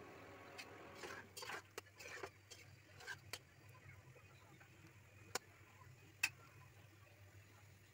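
Chicken and soyabean curry simmering in a pan: faint scattered pops and clicks over a low steady hum, with a sharp click about five and a half seconds in and a louder one about a second later.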